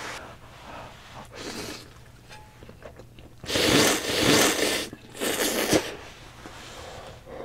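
A person slurping spicy instant ramen noodles: two long, loud slurps a little past the middle. Quieter chewing sounds come before and after.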